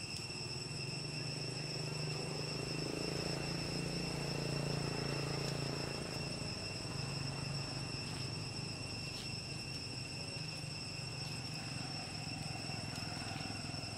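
Steady high-pitched insect chorus in the forest, under a low hum that swells during the first half and then eases off, with a few faint clicks.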